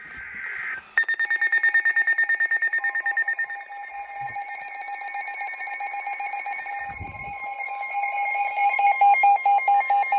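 Emergency Alert System attention signal: a loud electronic alert tone pulsing rapidly, starting about a second in, right after a short burst of screechy digital data noise. It announces a severe thunderstorm warning.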